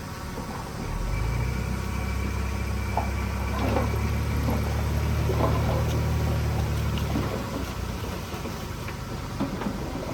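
Diesel engine of heavy earthmoving equipment running steadily, with scattered clanks and knocks through the middle.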